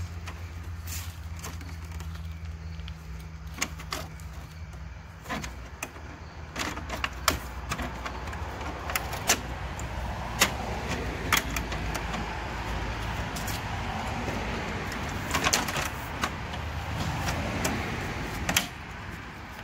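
Plastic grille being pushed and clipped onto an SUV's front end: a string of sharp plastic clicks and knocks, with plastic rubbing and scraping against the bumper in between.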